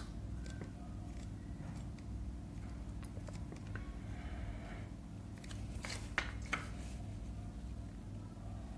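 Faint scratching and light tapping of a pencil marking divisions on paper along a ruler, with two sharper clicks a little past the middle, over a steady low hum.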